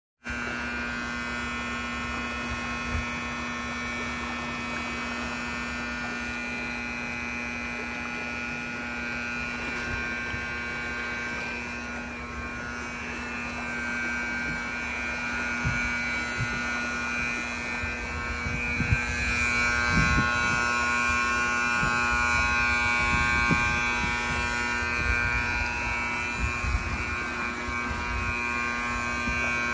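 A steady electrical hum made of several held tones, with low thumps and rumbles coming in during the second half.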